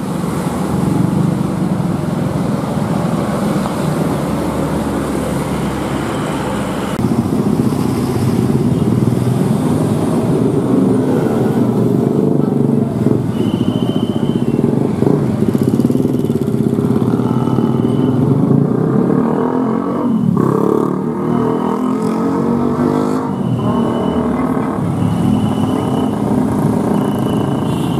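Road traffic at close range: the engines of trucks, buses, cars and motorcycles running as they pass in slow, heavy traffic. From about halfway through, a short high beep repeats roughly every second and a half.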